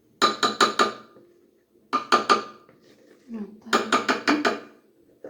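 Metal utensil clinking rapidly against kitchenware, in three quick bursts of several ringing strikes each.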